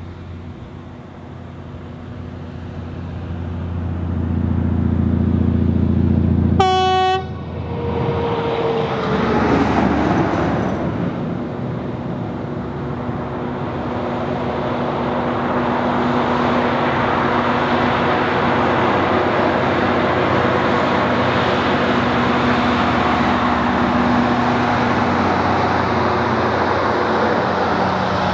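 Diesel-electric locomotives of a loaded narrow-gauge coal train working in notch eight up the grade, growing louder as they approach. A short horn blast sounds about seven seconds in, and the engine note drops in pitch as the locomotives pass. The coal wagons then roll by with steady wheel-on-rail noise.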